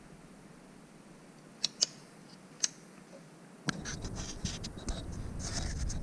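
A few sharp, light clicks, then, a little past halfway, a louder run of scratching and handling noise with many small clicks.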